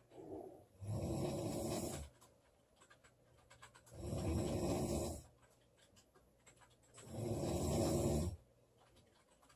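A woman snoring loudly in her sleep: three rough snores about three seconds apart, each lasting a little over a second, near-quiet between them.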